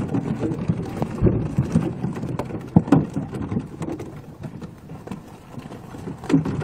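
Live fish flapping and slapping against a plastic crate and the boat as they are shaken out of a woven basket fish trap: a rapid, irregular patter of slaps and knocks that thins out after about four seconds.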